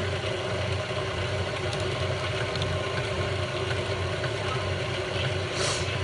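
KitchenAid tilt-head stand mixer running steadily, its motor humming as the beater whips cake batter in a stainless steel bowl.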